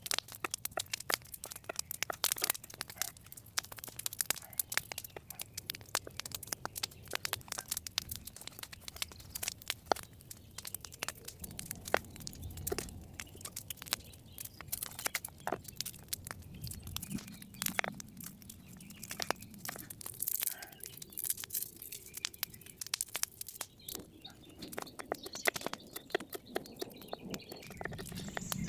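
Wood campfire burning strongly, crackling and popping: a dense, irregular run of sharp snaps.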